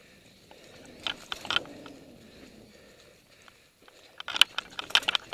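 Mountain bike rolling along a dirt trail: a low tyre rumble with a few clicks about a second in, then, from about four seconds in, a run of sharp, irregular rattles and knocks as the bike goes over rocks.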